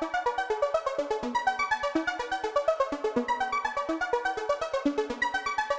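Background electronic music: a synthesizer playing quick, evenly pulsed notes, about seven or eight a second.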